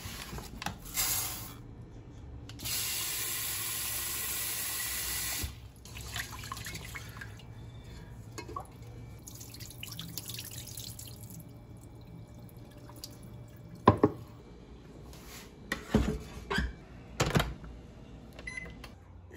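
Kitchen tap running into the sink for about three seconds, then shutting off. Later come several sharp knocks and clacks, the loudest about two-thirds of the way in.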